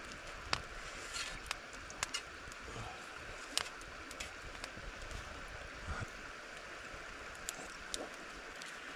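Wood campfire crackling: scattered sharp pops at irregular intervals over a steady background hiss.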